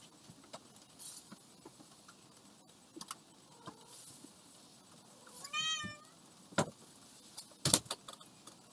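A cat meows once, a short call that bends up and down in pitch, a little over halfway through. Scattered knocks and clatters come before and after it, the loudest near the end.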